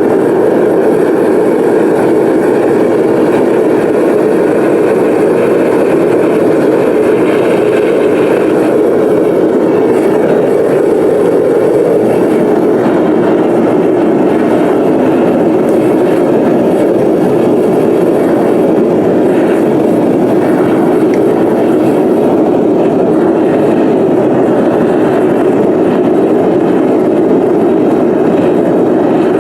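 Metal-melting furnace burner running with a loud, steady roar while brass scrap melts in the crucible.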